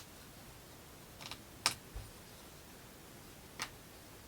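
Small plywood model parts clicking and tapping as they are handled and pressed together: a couple of light clicks and a sharper one a little over a second in, a soft low knock just after, and one more click later on.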